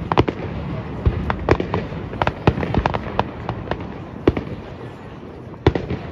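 Aerial fireworks shells bursting one after another in sharp bangs, about a dozen at irregular intervals, with a quieter gap near the end before two more bangs close together.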